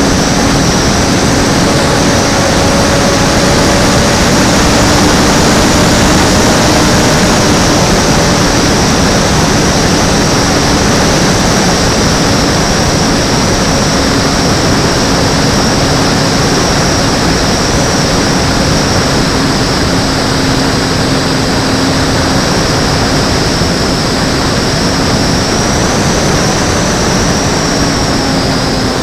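Electric motor and propeller of an E-flite Timber RC plane, recorded by a camera on board in flight: a steady whine that shifts slightly in pitch, under heavy wind rush.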